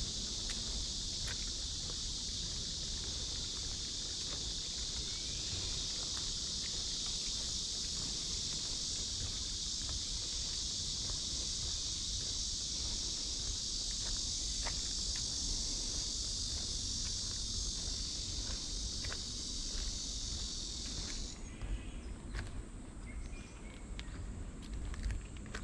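Cicadas buzzing in a dense, steady high chorus that cuts off suddenly about five seconds before the end, with footsteps ticking throughout.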